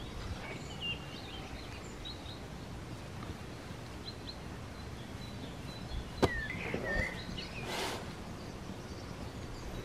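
Birds chirping over a steady outdoor background hiss, with a sharp click a little after six seconds and a brief rustle near eight seconds.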